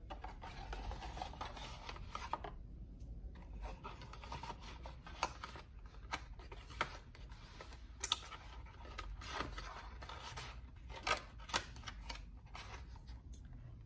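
Paper and cardboard packaging rustling and scraping as it is handled, with several sharp clicks and taps scattered through, the loudest about 5, 8 and 11 seconds in.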